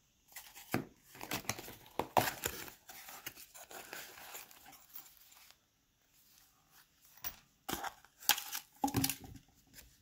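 Small cardboard box being opened by hand: scraping and rustling of the card flaps and packaging for about five seconds. After a short lull come a few sharp rustles and clicks of the packaging being handled near the end.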